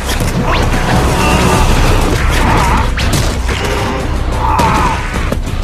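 Anime fight sound effects over background music: scuffling and a few sharp hits as a man is grabbed and thrown, with one hit about three seconds in and two more near the end.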